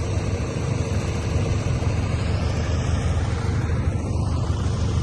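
A motor vehicle engine running steadily, a low rumble without change.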